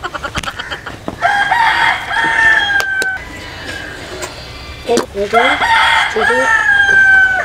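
A rooster crowing twice, each crow rising in short steps and ending in a long, slightly falling held note: once about a second in and again about five seconds in.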